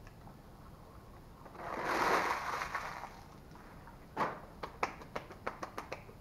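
A paper-and-foil food wrapper rustles for about a second. Then hands are brushed and patted together in a quick run of about a dozen light claps.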